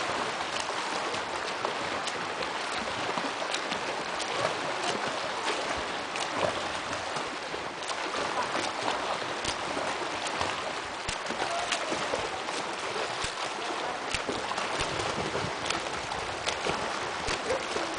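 Water splashing from a swimmer's front-crawl arm strokes and kicks in a pool: a steady wash of water noise broken by frequent short, sharp splashes.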